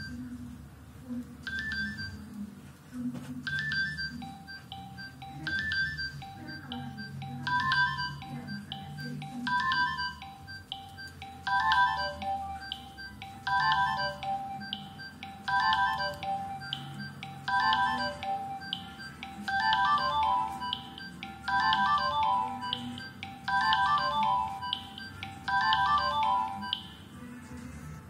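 Nokia 6070 mobile phone playing a ringtone through its loudspeaker: a short melodic phrase repeating about every two seconds, growing fuller and louder as more notes join in, then stopping just before the end.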